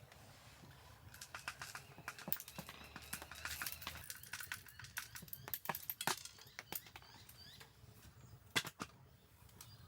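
Irregular light clicks and knocks, a dense flurry in the first few seconds, then scattered single taps with a sharper knock near the end.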